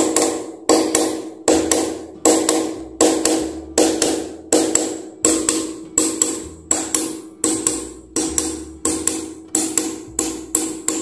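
Hammer striking a nail in quick, even taps, about two to three a second, each blow ringing briefly. The nail is being driven slowly and carefully so that it does not bend.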